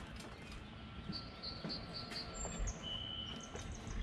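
A bird chirping in the background: a quick run of short high chirps about a second in, then a brief higher note and a short held whistle near the middle, over a low rumble.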